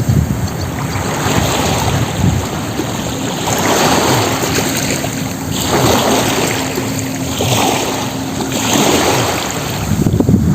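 Sea waves surging and washing in one after another every couple of seconds, with wind buffeting the microphone, heavier near the end.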